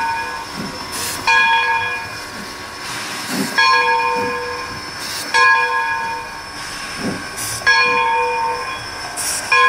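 Bell of Essex Terminal 9, an 0-6-0 steam switcher, clanging about once every two seconds while the locomotive moves slowly, with a short burst of steam hiss just before each ring.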